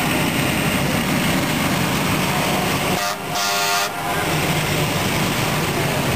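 Fire engines driving past close by, their engines running, with an air horn blast about three seconds in that lasts roughly a second.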